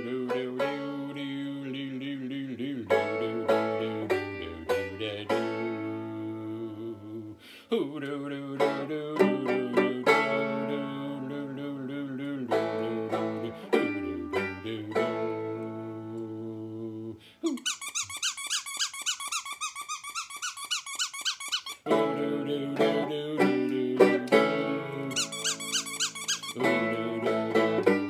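Banjo being picked in a lively tune, each plucked note ringing. Partway through, the picking drops out for a few seconds while a high, wavering tone carries on, then the banjo comes back in.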